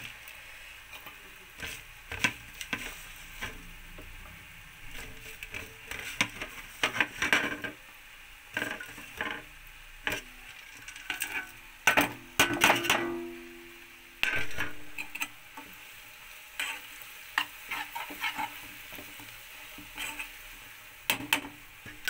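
Ginger and spices sizzling in hot ghee in a steel pan, with a steel spoon scraping and knocking against the pan in irregular strokes. About twelve seconds in, a steel plate clinks against the pan with a brief ringing as turmeric is tipped in.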